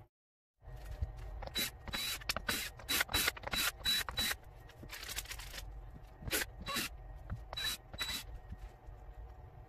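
DeWalt cordless drill/driver run in about a dozen short trigger bursts with a high motor whine, taking the screws out of a small mold box. The bursts come close together at first, then more spaced out.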